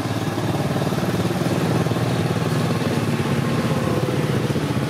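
A small engine idling steadily with a fast, even pulse.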